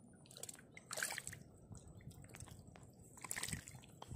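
Snakehead fish wriggling and flopping over one another in wet mud and shallow water: faint wet squelching and small splashes, with louder splashes about a second in and again about three and a half seconds in.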